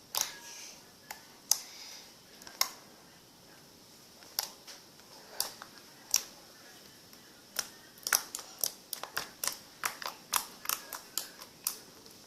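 Glue slime made with contact lens solution being poked and squeezed by hand, making sharp sticky clicks and pops. They are scattered at first, then come in a quick irregular run over the last four seconds.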